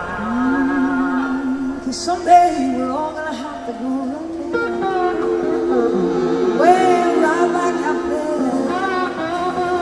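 Live rock band playing: a woman singing lead into a microphone over electric slide guitar, drums and the rest of the band.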